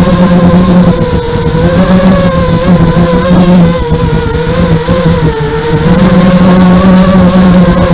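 A small FPV racing quadcopter's brushless motors and propellers in flight, heard through its onboard camera: a loud, buzzing hum whose pitch wavers up and down with throttle, with a thin high whine above it.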